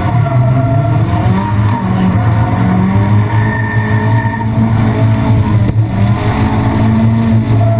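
Nissan 240SX drift car's turbocharged engine held at high revs through a sustained slide, its pitch wavering up and down, over the noise of the rear tyres spinning and skidding.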